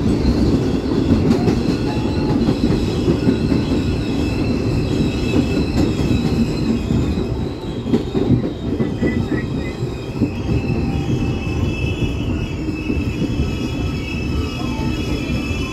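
An R62A New York subway car running on the rails, heard from inside the car as a loud, steady rumble. In the second half, several high-pitched squealing tones join in as the train slows into a station.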